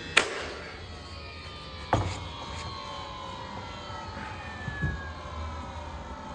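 Brad nailer firing two nails into pine fence-picket boards, two sharp shots about two seconds apart, over a set of tones that slowly fall in pitch.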